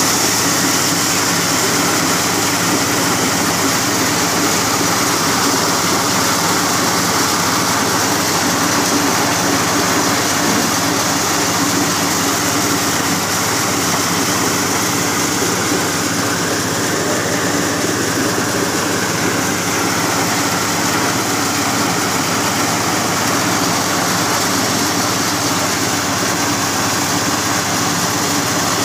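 Engine-driven corn sheller running steadily under load while cobs are fed through it. A steady engine drone sits under a dense, high rattle of cobs being stripped and kernels pouring from the chute.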